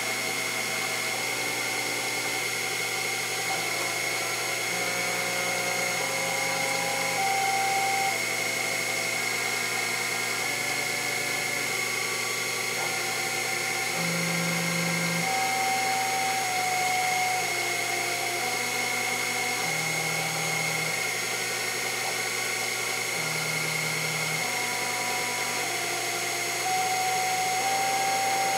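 Sherline CNC mill cutting Delrin while its rotary axis turns with the other axes: a steady high whine, with the stepper-motor drive tones jumping to a new pitch every second or so as the axis speeds change.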